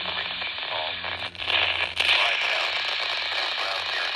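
Steady hiss and static from a radio receiver on a VHF relay channel, with a louder burst of crackling static about a second and a half in. Faint speech of the relayed alert is buried in the noise.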